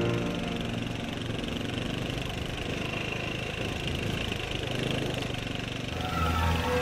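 Off-road vehicle's engine running steadily with a fast, even pulse while riding a dirt trail.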